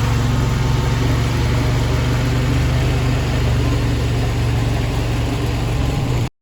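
Vorx NL380 mini skid steer's 23 hp RATO V-twin engine running steadily, cutting off suddenly near the end.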